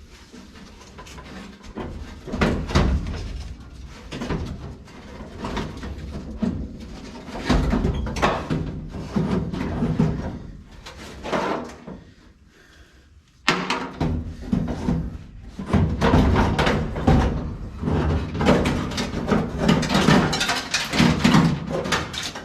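Repeated irregular metal clunks, knocks and scraping as the door glass and its frame are worked loose and pulled out of a 1955 Chevy 210 door. There is a short lull a little past halfway.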